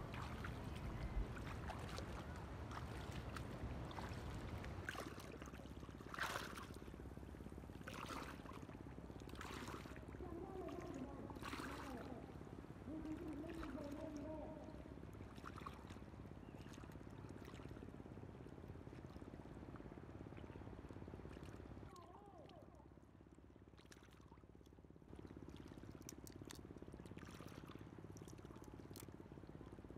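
Bare feet wading slowly through shallow seawater, with soft splashes every couple of seconds. Faint voices come through in the middle stretch.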